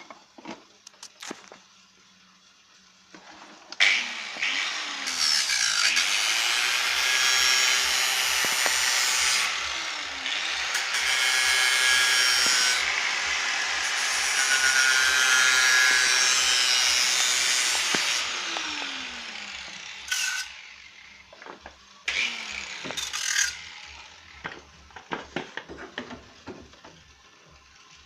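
Electric power tool working on car-body sheet metal: its motor note sags under load and picks up again through two long runs, with a short third run later. Sharp metallic knocks and taps come before and after.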